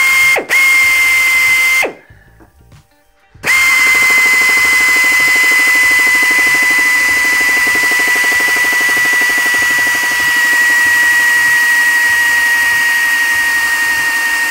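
Power drill whining steadily as a twist bit drills out a stubborn brass plug, with a broken easy-out inside it, in a steel hydraulic valve block. A short run with a brief stop comes first, then a pause of about a second and a half, then one long continuous run whose pitch slowly sags.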